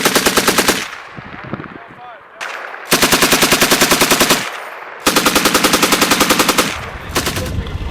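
M240B machine guns firing in short, alternating bursts of automatic fire as 'talking guns'. There are four bursts of rapid shots, the middle two longest and a short one near the end.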